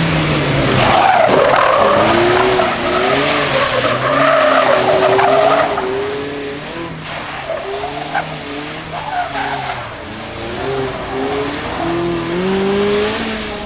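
Mazda Roadster (MX-5, ND) four-cylinder engine revving up and down, over and over, as the car is thrown through tight turns. The tyres squeal loudly through the first half.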